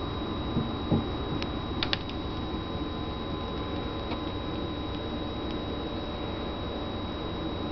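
Steady indoor hum and hiss with a thin high-pitched whine running through it, and a few light clicks and knocks about a second in.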